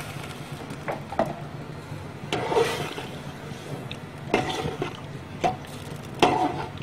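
Cut potatoes added to a simmering curry in an aluminium pot and stirred in with a metal ladle: about five short sloshing strokes of liquid, over a low steady hum.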